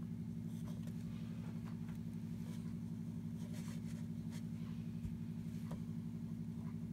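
A steady low mechanical hum with a fast, even flutter, from a small motor or fan. Faint soft ticks from the paintbrush touching the watercolour paper come now and then.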